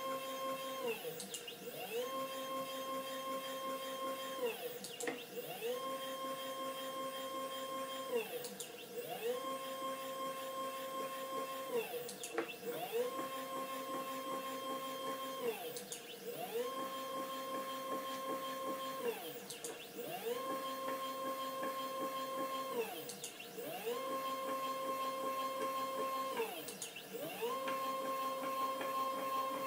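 Stepper motors driving the leadscrews of a CNC-converted Proxxon KT150 cross table through repeated moves. Each move is a pitched whine that rises as the motors speed up, holds steady for about two seconds, then falls as they slow, repeating roughly every three and a half seconds.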